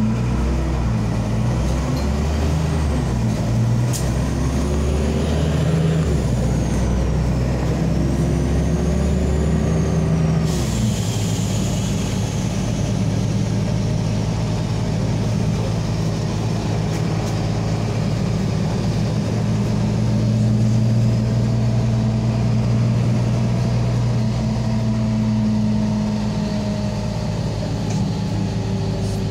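Inside a LAZ articulated city bus pulling away and driving: the engine's note shifts in steps as it picks up speed, with a faint high whine rising and falling over the first ten seconds. After a sudden change about ten seconds in, it runs more steadily with road noise.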